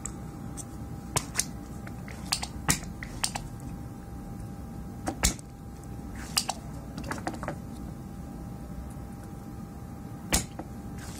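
Desoldering at a circuit board: irregular light clicks and taps of tools on the board and its parts over a steady low hum. A sharper snap comes about ten seconds in as a spring-loaded desoldering pump is fired at the joint.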